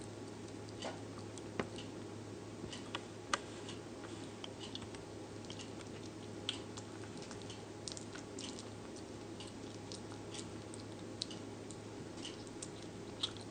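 Slow loris biting and chewing a chunk of food: scattered small wet clicks and smacks over a steady low hum.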